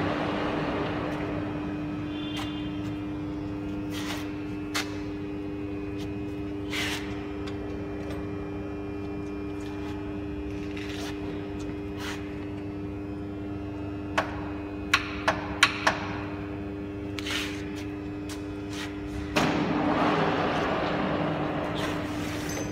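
Collet BFF100 horizontal boring machine running, its drive giving a steady hum with a few fixed pitches. A quick run of sharp clicks comes about two-thirds of the way through, and a louder rushing noise comes in near the end.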